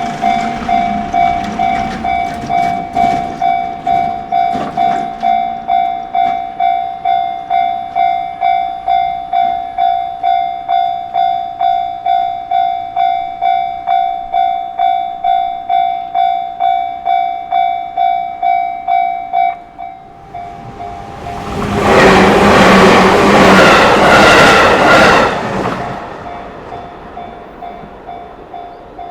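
Japanese level-crossing warning bell ringing, about two strokes a second, while train wheels clatter over the rail joints in the first few seconds. The bell stops about twenty seconds in, a fainter bell keeps ringing, and a loud rushing noise of something passing close by runs for about four seconds.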